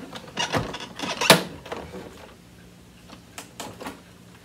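Plastic clicks and knocks as the lid of a Riccar Pizzazz canister vacuum is unlatched and lifted open, the sharpest knock about a second in, then a few lighter ticks near the end.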